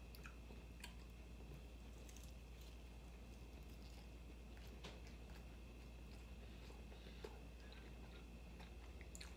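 Faint close-up chewing of a ground-turkey taco, with scattered small wet clicks and crackles of the mouth working the food.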